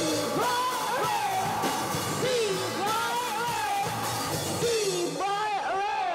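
Rock band playing live: drums, guitar and a sliding, bending melody line over the full band, which stops abruptly at the very end.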